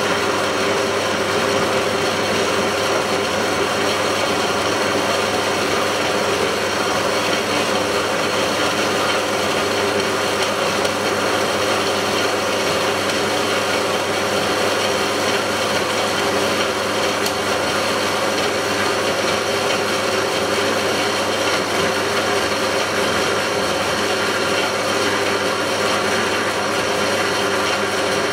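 Clarke CBS45MD 6x4-inch metal-cutting bandsaw running steadily, its blade cutting through 40 mm steel box section.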